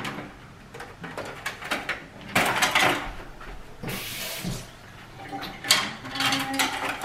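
Kitchen clatter from someone rummaging for a utensil: scattered knocks and rattling, louder about two and a half seconds in, with a short hiss about four seconds in.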